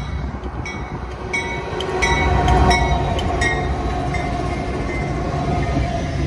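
Norfolk Southern diesel locomotive passing close by, its rumble building to a peak about two and a half seconds in, then double-stack intermodal well cars rolling past. Wheels on the rail give a series of sharp metallic clicks with brief ringing as the locomotive goes by.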